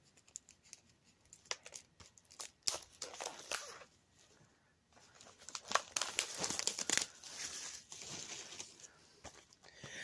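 Plastic wrapping being torn and crinkled off a new DVD box set, in irregular crackling bursts with a short pause about halfway through.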